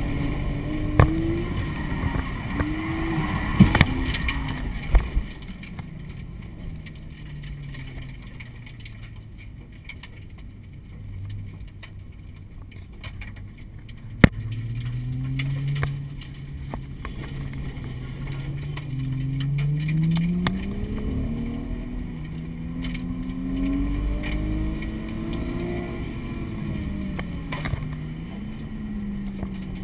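Drift car's engine heard from inside the cabin, its revs swinging up and down, easing off to a low run for several seconds in the middle before climbing again. A few sharp knocks come in the first five seconds, and one more about fourteen seconds in.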